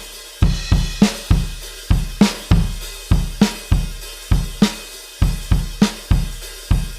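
Alternative rock drum-kit loop: kick drum, snare and hi-hat or cymbal playing a steady, even beat, about three to four strikes a second.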